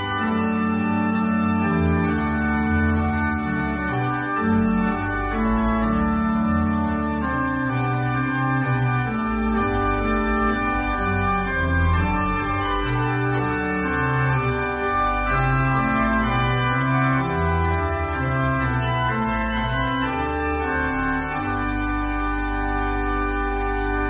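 Organ music: sustained chords that change every second or so over deep held bass notes, settling on a long held chord near the end.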